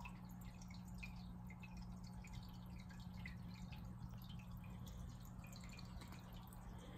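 Aquarium filter water dripping and bubbling at the surface, a faint quick irregular patter, over a steady low hum.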